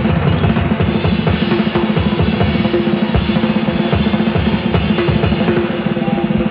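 Rock drum kit played fast in rolls, bass drum and snare to the fore, with a steady held note underneath.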